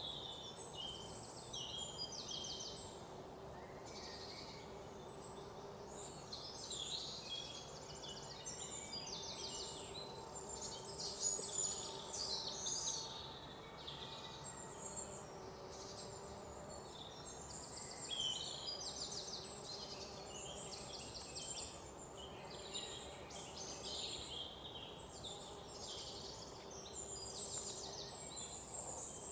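Several birds singing and chirping continuously, many in quick rattling trills, over a steady low background hiss.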